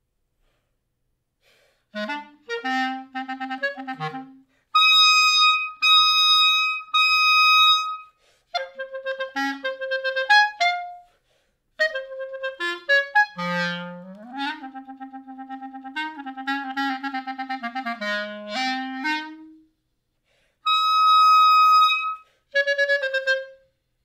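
Solo clarinet playing, starting about two seconds in: short phrases of separate notes broken by pauses, loud high held notes, a low note that slides upward, and a fast fluttering passage.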